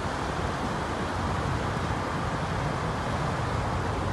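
Stern paddlewheel of a riverboat churning river water: a steady rushing wash with a low rumble beneath it.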